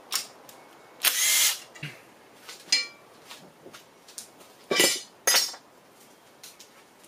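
Cordless drill-driver spinning bolts out of a Honda K24A's oil pump in three short bursts, with light metal clicks between them as loosened parts are handled.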